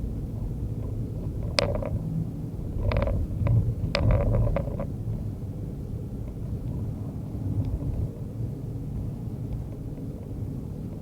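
Car driving through a blizzard: a steady low rumble of engine and road noise, with a few short clicks and knocks between about one and a half and five seconds in.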